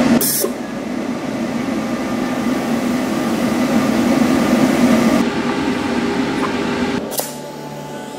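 Shielding gas hissing steadily through a welding regulator and flowmeter while its flow knob is adjusted. The hiss cuts off about seven seconds in.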